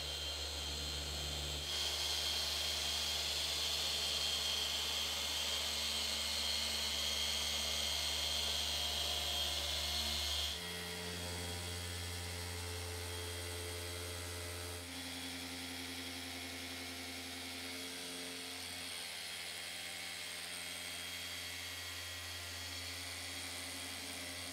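Electric car-paint polishers running steadily on the paint: a Rupes polisher, then a small cordless mini polisher. The motor hum shifts abruptly in pitch and loudness about two, ten and fifteen seconds in.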